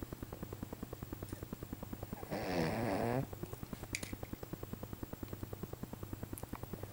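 Snoring: a fast, steady fluttering rattle with each breath. About two and a half seconds in there is one louder, drawn-out snore of about a second that falls in pitch.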